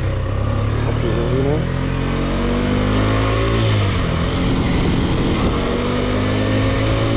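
KTM 125 single-cylinder motorcycle engine accelerating: its pitch climbs, drops at a gear change about halfway through, then climbs again, over steady wind rush.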